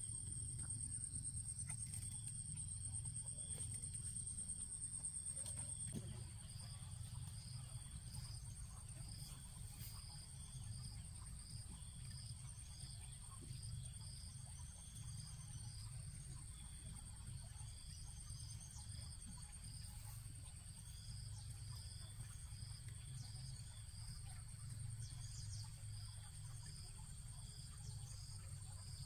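Insects trilling outdoors: one high, continuous trill, plus a second insect chirping in a fast repeated series, over a low background rumble.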